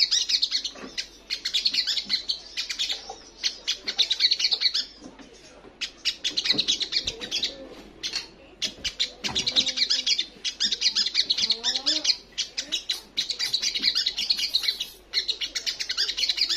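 Olive-backed sunbird singing: repeated bursts of fast, high twittering notes, each a second or two long, broken by short pauses.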